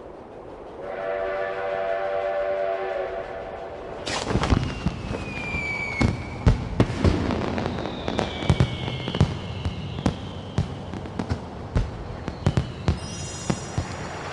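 A steam whistle sounds a steady chord for about two and a half seconds. Then a run of fireworks: sharp bangs and pops with crackling and falling whistles, repeated through to the end.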